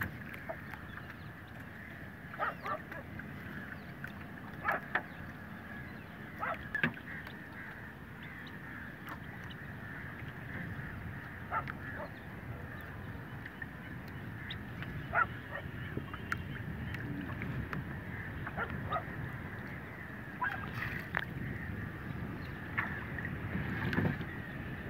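Wind and water around a small fishing boat, with repeated short honking bird calls a few seconds apart.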